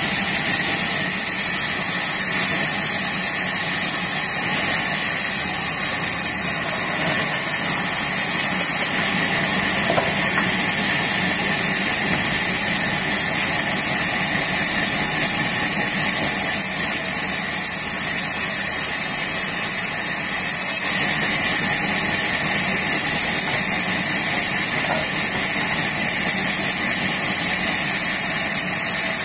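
Large sawmill band saw running steadily as planks are fed through its blade and ripped lengthwise, a continuous loud hissing mechanical noise.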